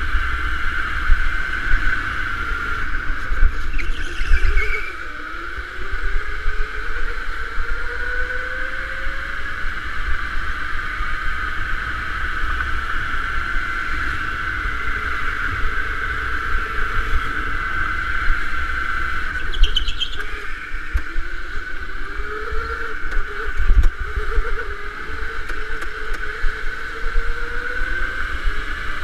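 Electric go-kart motor whining steadily at lap speed, with a lower tone that rises in pitch twice as the kart picks up speed. Under it is a low rumble from the kart's vibration and wind on the mounted camera, and there are two brief higher-pitched squeals.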